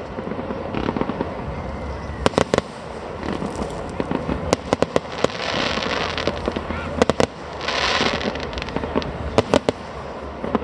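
Aerial fireworks going off: sharp bangs in quick clusters of two to four, with two stretches of dense crackle about halfway through.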